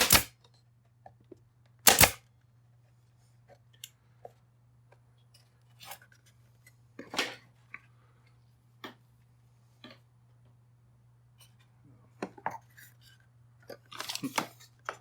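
Pin nailer firing twice, about two seconds apart, driving pins into small wooden shims. Light clicks and handling noise of the wood follow.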